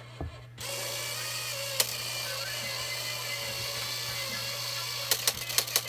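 Toy car's small electric motor running with a steady whine that starts about half a second in, with a single click near two seconds and a quick run of sharp clicks near the end.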